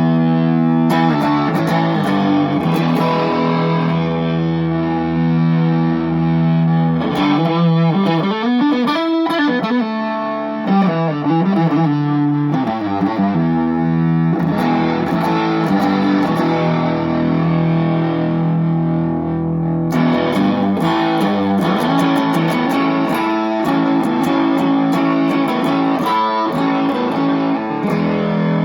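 Electric guitar (Strat with a bridge humbucker) played through a Maestro Fuzz-Tone-style fuzz pedal, the KVFX Skuzz Tone, into an Egnater Tweaker 15 amp: held, fuzzed chords and riffs with sliding notes about eight to ten seconds in, picked up by a phone microphone.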